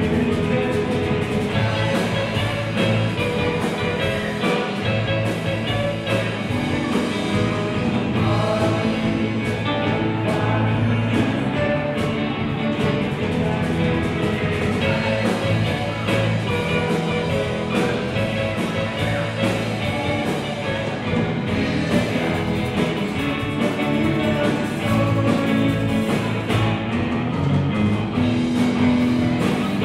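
Live band playing rock and roll: electric guitars and drums, with singing.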